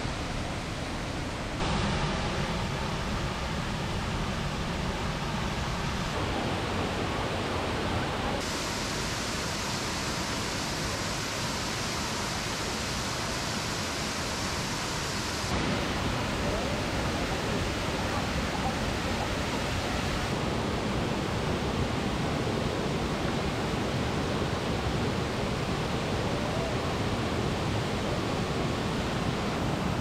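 Steady rushing of a waterfall pouring over rock, its tone changing abruptly about five times.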